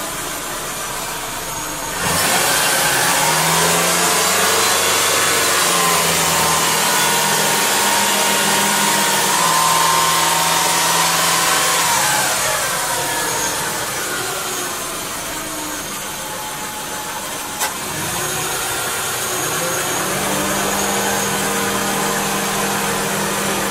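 Subaru Baja's flat-four engine idling with the A/C running, the compressor cycling on a partial 12-ounce refrigerant charge. A loud steady rush with a whine comes on suddenly about two seconds in and fades from about twelve seconds; a single click follows near eighteen seconds, then a steadier hum.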